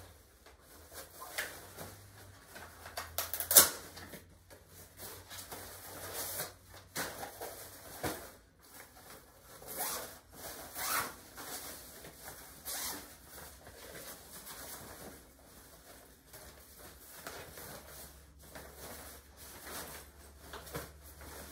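Fabric travel packing pouches and their packaging being handled and unpacked: irregular rustling and rubbing, with one sharp, louder noise about three and a half seconds in.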